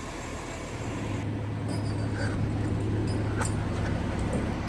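Crane truck's engine picking up speed about a second in and then running steadily under load, powering the boom as the lift gets under way.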